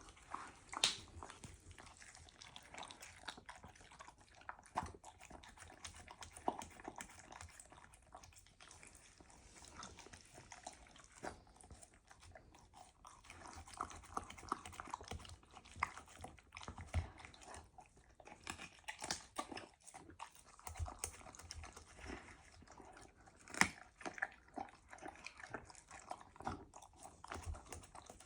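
A puma chewing and biting into chicken, with irregular wet crunches and clicks of its teeth.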